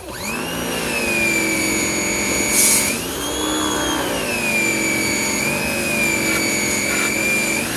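Electric pressure washer's motor running with a steady whine while the wand sprays. The motor starts up just after the start with a rising whine, and its pitch swells and settles again about three seconds in.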